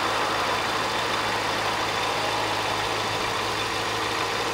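Kawasaki ZZR400's inline-four engine idling steadily on its centre stand, running evenly with no revving.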